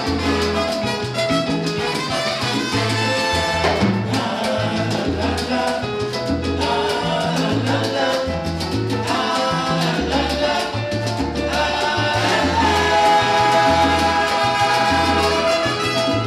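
Salsa orchestra playing live: a repeating bass line under percussion, with sustained pitched melody lines over it.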